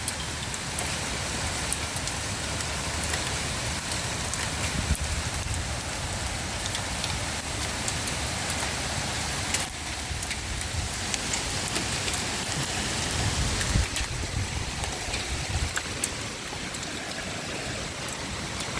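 Hail and heavy rain pelting down in a steady hiss, with scattered sharp ticks of hailstones striking hard surfaces and a few brief low rumbles.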